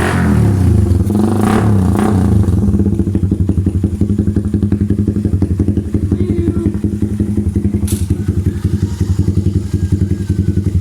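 Suzuki Raider 150's stock single-cylinder four-stroke engine, breathing through a Vmax conical stage 2 racing pipe, drops back from a rev and settles into a steady idle. The exhaust beat at idle is an even, rapid pulsing, with a couple of brief clicks.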